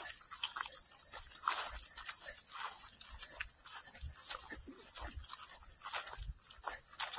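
Footsteps of someone walking on a mowed grass trail, soft irregular steps about twice a second, over a steady high-pitched insect chorus.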